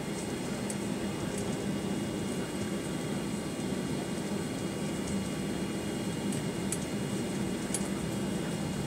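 Steady cabin noise inside a Boeing 737-900ER taxiing: its CFM56 engines at idle and the air-conditioning airflow make an even rush with a low steady hum, and a few faint ticks come through.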